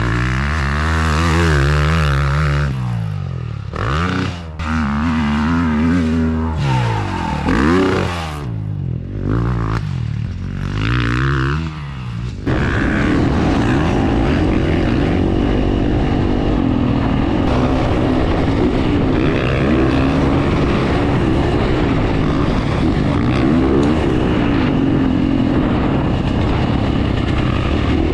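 Gas Gas 450F single-cylinder four-stroke dirt bike engine revving up and down repeatedly, then running at a steady, sustained pitch from about halfway in.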